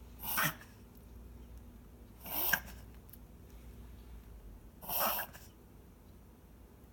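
A pet coughing in three short, harsh bursts about two and a half seconds apart, the sign of its breathing problem.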